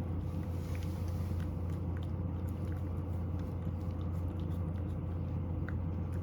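A cat eating, with scattered small clicks of chewing over a steady low hum.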